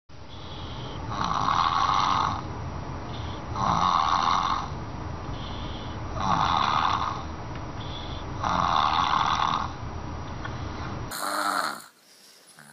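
Loud snoring: four long snores about two and a half seconds apart. About eleven seconds in the sound changes abruptly, with a short different sound, then drops to much quieter.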